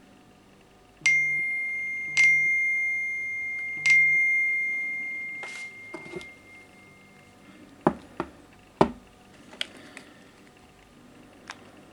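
A mobile phone's chime tone: three bell-like dings a second or two apart, each ringing on and fading slowly. A few seconds later, several sharp clicks and taps, the loudest two close together.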